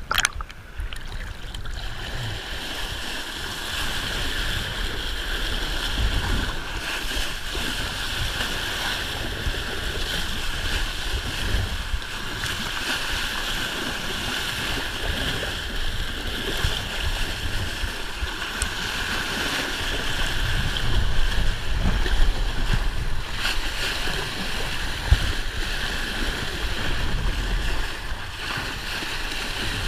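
Kiteboard planing over choppy sea: steady rushing of water and spray along the board, with wind buffeting the camera's microphone in a gusting low rumble. A sharp knock comes right at the start.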